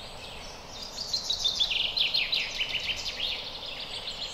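A songbird singing a fast run of short, high chirps, starting about a second in, over a steady hiss of forest ambience.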